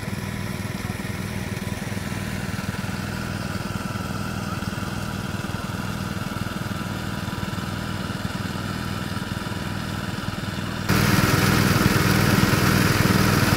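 Small portable engine-driven water pump running steadily, its outlet pipes gushing muddy water. About eleven seconds in the sound jumps much louder.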